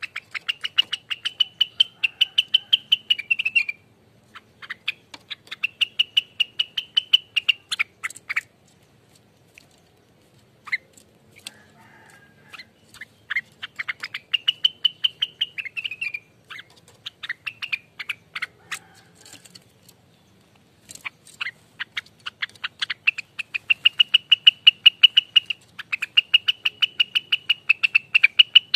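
Rengganis (cucak wilis) bird singing its rapid rattling 'ropelan' song: bouts of several seconds of fast repeated notes, about ten a second at a steady high pitch, broken by short pauses.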